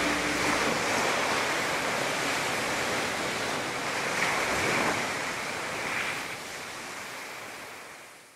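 Ocean surf washing on a beach, a steady rushing noise that fades out over the last couple of seconds.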